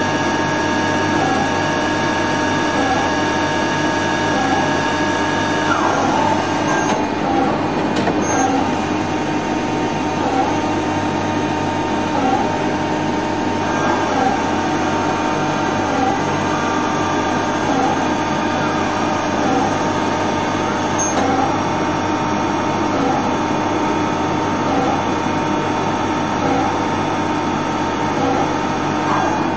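INDEX G200 CNC lathe running a machining cycle: steady whirring of spindles and drives, with a high whine that glides down and stops about six seconds in and a sharp click just after eight seconds.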